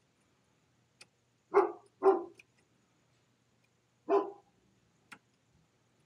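Large shepherd dog barking behind the door: three short barks, two close together and one a couple of seconds later. Two faint clicks from the Lishi pick working in the doorknob lock.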